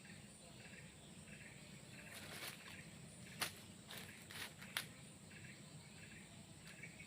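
Quiet outdoor ambience with faint, repeating chirps. A few short sharp crackles or rustles come in the middle, like movement through vegetation.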